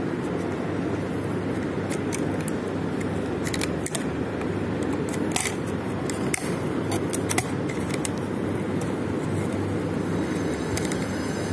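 Small sharp clicks and scrapes of a screwdriver working on a plastic electrical socket, several in quick succession in the middle, over a steady background hum.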